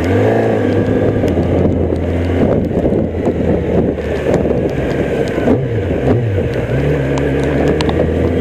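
Kawasaki ZX-10R's 998 cc inline-four engine running under way. Its note sweeps just after the start, dips and wavers with throttle changes about six seconds in, then settles steady again.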